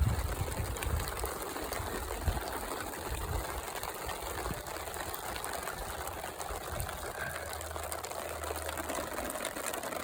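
Rain shower falling in big drops: a steady patter of many drops. A low steady hum joins about three-quarters of the way in.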